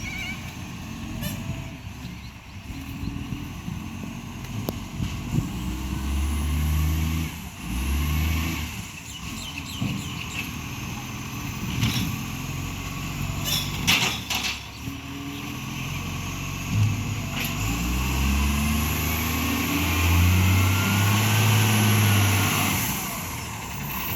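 Iveco ACCO garbage truck's diesel engine running and revving up twice as it pulls away, its pitch climbing each time, with a couple of short sharp sounds about halfway through. The truck has an exhaust leak.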